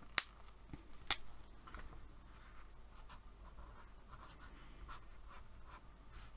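Two sharp plastic clicks about a second apart as the cap of a dual-tip marker comes off and snaps on, then the marker's fine felt tip scratching faintly on paper while writing.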